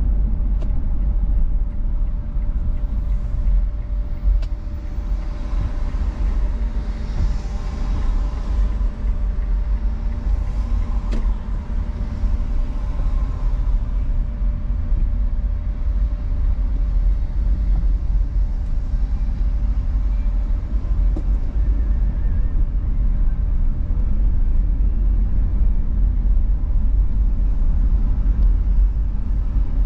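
Steady low rumble of a car driving on a highway, heard from inside the cabin, with a faint steady hum above it.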